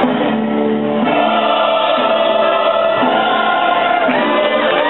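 Music: a choir singing long held chords.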